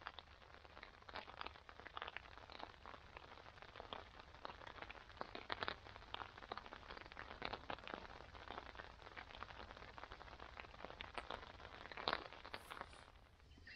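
Rain falling on a Naturehike Cloud Peak 2 tent's silicone-coated nylon fly, heard from inside the tent: a faint, irregular scatter of drop ticks, with one louder hit near the end.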